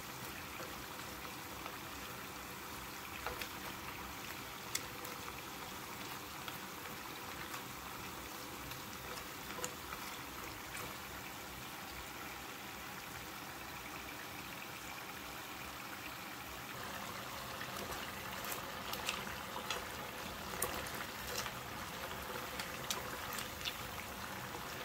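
Spring rolls deep-frying in hot oil in a pan: a steady bubbling sizzle with scattered small pops, getting a little louder and more crackly in the last several seconds.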